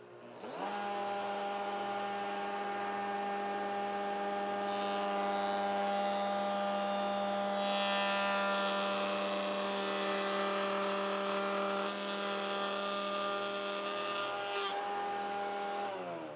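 Table-mounted router with a coping bit and a dust collector starting up and running with a steady hum, whose pitch rises as they come up to speed. From about five seconds in to about fifteen, the bit cuts across the end of a pine board pushed through in a coping sled, adding a hissing cutting noise. Near the end the motors wind down, their pitch falling.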